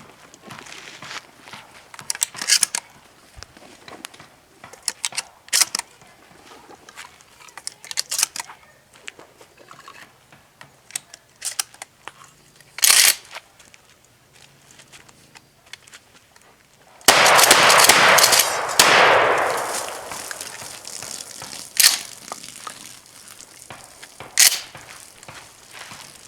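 Remington 870 12-gauge pump-action shotgun firing: a single shot about halfway through, then a rapid string of shots fired in quick succession a few seconds later, and two more single shots spaced a couple of seconds apart. Lighter clicks and clacks come between the shots.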